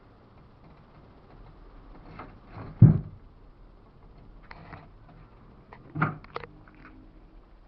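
Two heavy thumps about three seconds apart, the second followed by a short run of quick knocks and clatter, with a fainter rattle between them.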